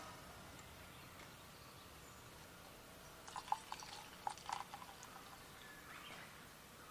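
A quick run of faint clicks and light clinks of small hard objects being handled, about three seconds in and lasting under two seconds, over a quiet steady background.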